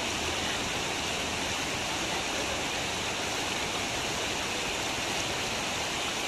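Floodwater rushing across a road, a steady, even hiss with no breaks.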